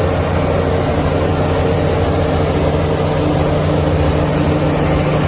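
Shantui DH17 crawler bulldozer's diesel engine running steadily with a low, even drone while the machine pushes sand with its blade.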